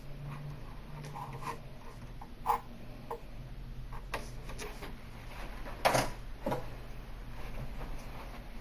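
Light clicks and scrapes of hand tools working plastic edge band, with sharper knocks about two and a half seconds in and again about six seconds in, over a steady low hum.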